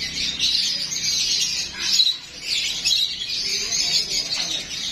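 A flock of caged parrots chirping and chattering together: many overlapping high calls in a dense, unbroken chorus.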